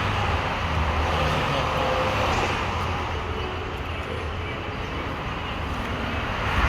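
Steady low rumble with an even hiss over it, with no distinct clicks or knocks.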